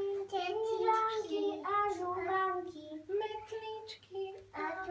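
A young child singing a Slovak St. Nicholas children's song unaccompanied, in held notes that step up and down with short breaths between phrases.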